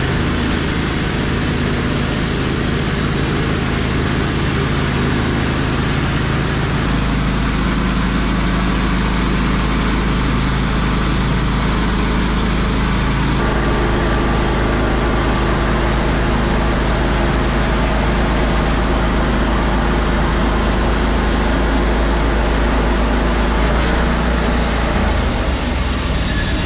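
Wood-Mizer LT15 Wide portable bandsaw mill running steadily, its 4-degree band blade sawing through an ash log. The machine's note shifts at about 7 seconds, again at about 13 seconds, and once more near the end as the cut goes on.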